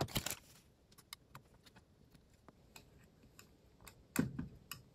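Packaging crinkling briefly at the start, then scattered small clicks and taps as a replacement metal belt clip is handled and fitted onto the plastic housing of a wireless in-ear monitor bodypack receiver, with a louder clack about four seconds in.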